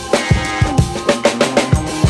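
Background music with a drum kit keeping a steady beat of bass-drum hits under held instrumental tones.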